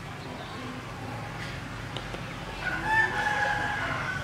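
A rooster crowing once: a long, held call that begins a little after halfway through and is the loudest sound.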